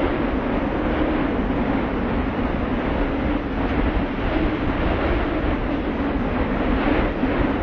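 Wind blowing steadily, loud, with a deep rumble underneath.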